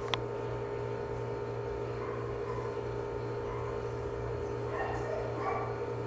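Steady electrical hum and room tone during a timed silent pause, with a sharp click right at the start and faint short sounds about five seconds in.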